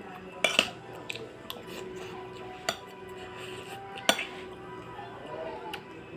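Metal spoon clinking against a ceramic plate of rice as someone eats: a few sharp clinks, two close together about half a second in, another near the middle and the loudest about four seconds in, over background music.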